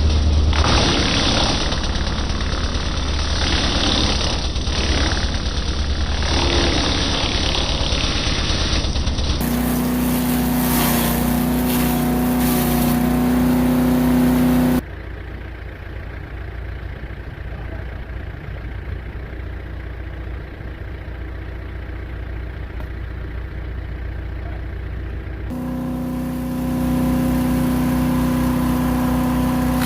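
Gas-engine wood chipper running in a string of cut clips. For the first ten seconds or so a loud, rough grinding noise covers everything. After that a steady engine hum holds one pitch, drops away in a quieter stretch, and returns near the end.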